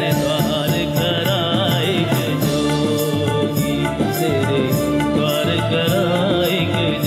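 A live band plays a Hindi film song: a wavering lead melody over keyboard and a steady percussion beat.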